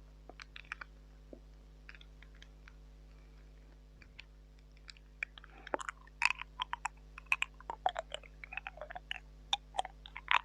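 Close-up wet mouth sounds into a mini microphone: tongue clicks and lip smacks, sparse at first, then quick and dense from about five seconds in.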